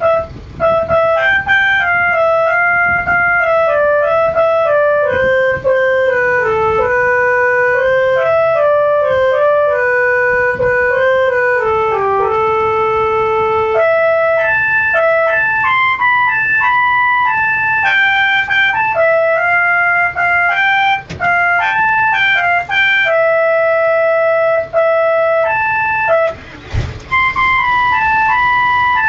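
Telolet horn on a Damai bus playing a tune: a set of horn trumpets sounding one clear note at a time, stepping between held notes with a few short breaks. Near the end there is a brief rush of noise.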